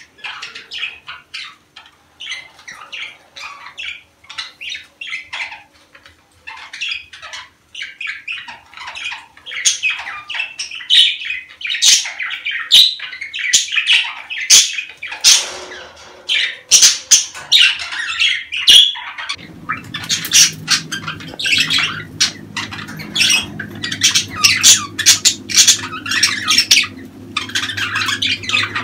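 Budgerigars in breeding season chattering and squawking in quick, overlapping chirps, sparse at first and busier after the first several seconds. A steady low hum joins about two-thirds of the way in.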